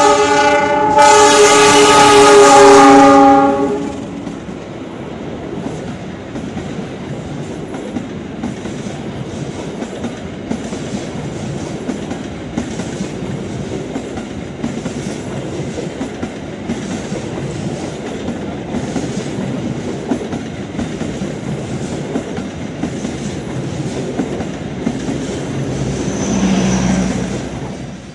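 Diesel locomotive CC 206 sounds its multi-tone horn in two blasts, the second held for about three seconds. Then the train's passenger coaches roll past with a steady rumble and regular clacks of the wheels over the rail joints, fading away near the end.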